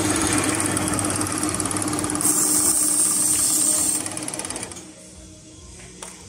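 Motor-driven briquette conveyor and disc-roller cutter running with a rapid mechanical rattle. It drops to a much lower level about five seconds in.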